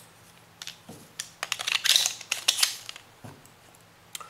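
Small clicks and rattles of plastic and metal parts as a KJ Glock 23 airsoft pistol's slide and an inner barrel and hop-up chamber set are handled and fitted together. The clicks are densest and loudest around the middle.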